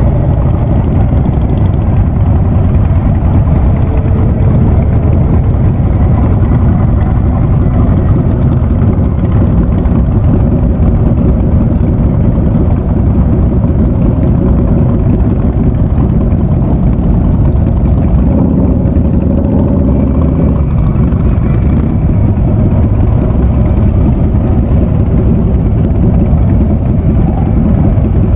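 Harley-Davidson Ultra Classic V-twin running steadily through a Vance & Hines Big Radius exhaust, a loud, deep, continuous exhaust note with no sharp revs.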